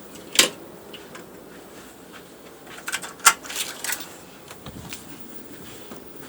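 Sharp knocking from a cruise ship cabin's unit: one knock, then a quick cluster of clattering knocks about three seconds in. It is a recurring mechanical fault that goes off every night and that an attempted repair has not cured.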